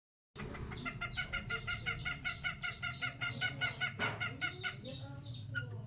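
Long-tailed shrike (cendet) singing: a fast, even run of repeated high chirps, several a second, starting about half a second in, breaking into more varied single notes near the end, over a steady low hum.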